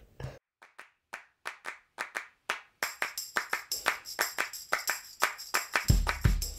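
Background music opening with a rhythm of claps that starts sparse and quickens. High ringing tones join about three seconds in, and a bass drum beat enters near the end.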